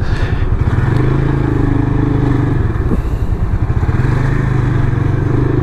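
Vento Thunderstar 250 motorcycle engine running at a steady pitch while riding, with a short dip about halfway through.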